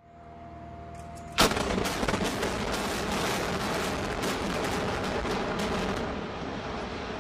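Building demolition by explosives: a faint steady tone, then one sharp loud blast about a second and a half in, followed by a run of rapid cracks over a continuing rumble that settles near the end.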